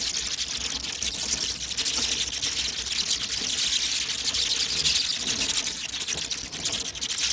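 Many bats squeaking and chattering together: a dense, steady stream of high, rapid clicks and chirps.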